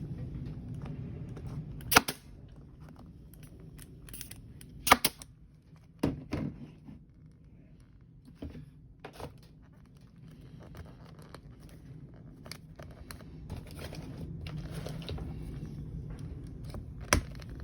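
Pneumatic staple gun firing about six times at irregular intervals, two shots in quick succession near the middle, driving staples through the armrest's vinyl covering into its plastic base. Between the shots the material rustles as it is stretched over the corners, over a steady low hum.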